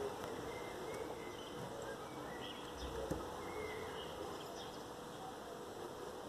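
Quiet outdoor ambience: a faint steady hiss and hum, with a few short, faint bird chirps scattered through and a soft knock about three seconds in.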